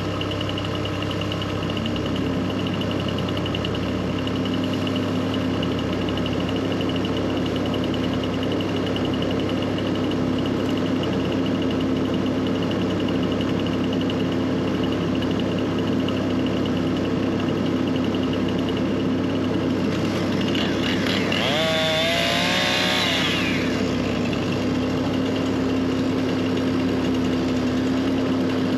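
Diesel engine of an earth-moving machine running steadily. A brief higher-pitched whine bends up and down about three-quarters of the way through.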